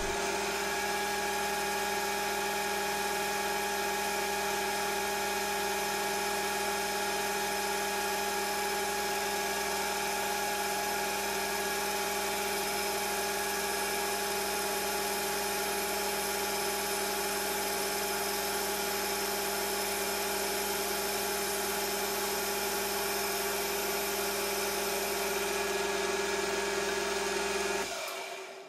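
Hafco AL-960B metal lathe running steadily under load with a constant whine while the tool takes a heavy cut in hard steel, removing excess material. The sound cuts off suddenly near the end.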